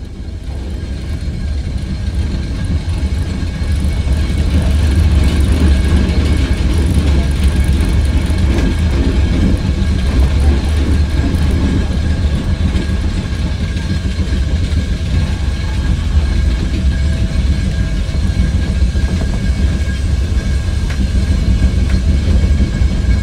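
Coal-fired cog railway steam locomotive working as the train starts moving slowly, heard right beside the engine. It is a loud, steady rumble that builds over the first few seconds and then holds.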